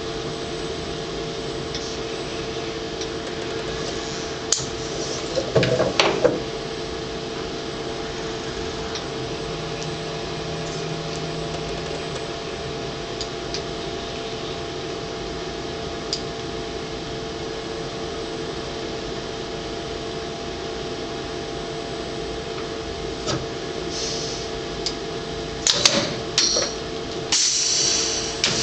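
Robotic packaging machinery running: a steady hum with a constant tone, a short motor whine about ten seconds in, and scattered clunks and clicks, bunched around six seconds in and again near the end.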